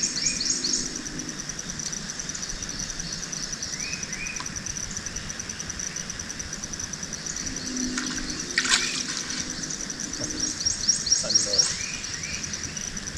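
Swamp ambience: an insect trilling steadily in a high, fast pulse, with birds calling over it in runs of quick falling chirps near the start and again near the end. A brief sharp noise cuts through about two-thirds of the way in.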